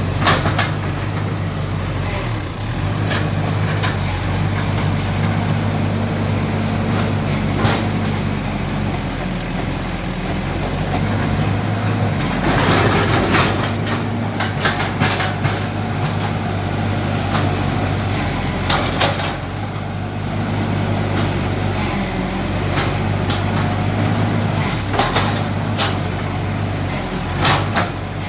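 Mini excavator's diesel engine running steadily while it digs, with scattered sharp knocks and a longer rush of scraping noise about halfway through.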